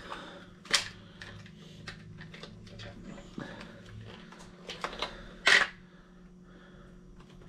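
Clicks and snaps of a hard plastic lure case being opened and a jig being taken out of it. There is a sharp snap under a second in, scattered small clicks, and the loudest snap about five and a half seconds in.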